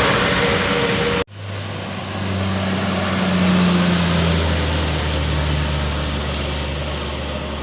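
Traffic noise with a steady tone, cut off abruptly about a second in. Then a large vehicle engine runs with a low steady hum that swells around the middle and eases off.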